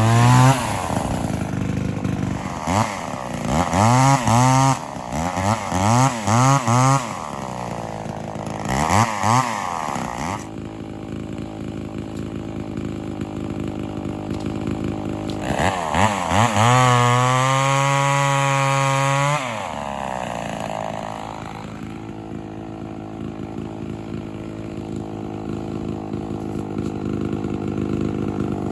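Homelite XL-400 two-stroke chainsaw revved in a series of short throttle blips over the first ten seconds, then held at high revs for about three seconds before dropping back to a steady idle.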